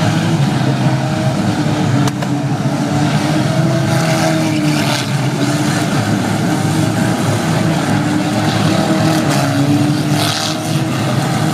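A car engine running steadily, its pitch drifting slightly up and down.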